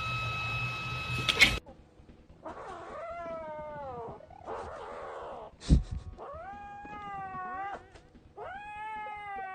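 A cat yowling in about four long, drawn-out meows that bend in pitch, with one sharp knock between the second and third. Before the meows, a steady high tone cuts off with a click.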